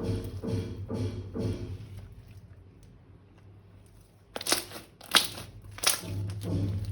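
Crunchy slime being squished and pressed, giving several loud crackling crunches in the second half, the loudest about five seconds in.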